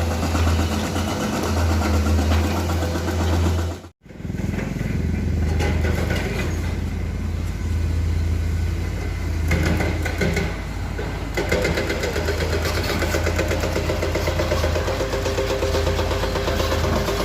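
Diesel engine of a Komatsu PC210 hydraulic excavator running steadily while it works. The sound cuts out for an instant about four seconds in.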